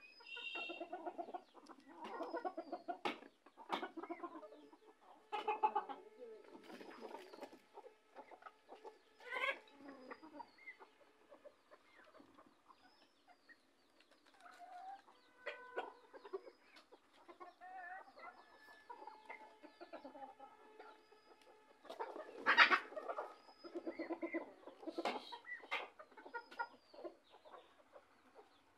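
Chickens, hens and a rooster, clucking in short, repeated bursts, with a louder flurry of clucks about three quarters of the way through.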